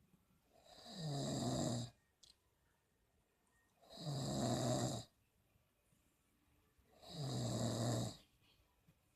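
Snoring, rhythmic: three snores about three seconds apart, each about a second long, with a low rattling drone and a breathy hiss over it. Between them there is a quiet breath.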